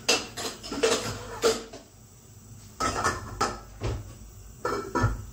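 Metal pots, pans and lids clattering and clanking as they are rummaged through to find a pot lid. The sharp knocks come in three bunches.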